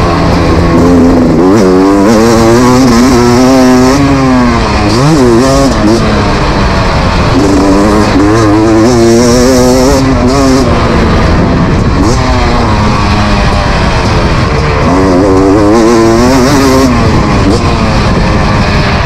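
Beta RX 300 two-stroke motocross engine being ridden hard, its pitch climbing and dropping again and again as the throttle is opened and rolled off through the track's corners and straights.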